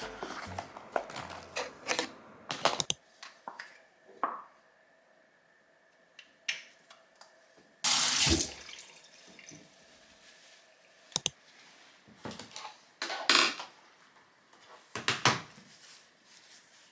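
Handling sounds at a sink: scattered clinks and knocks, with a short gush of running water about eight seconds in.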